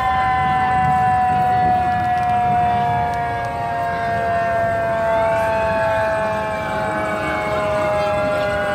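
Fire engine sirens sounding during a slow approach: one held tone that sinks slowly in pitch throughout, joined a few seconds in by another siren rising and falling, over a low engine rumble.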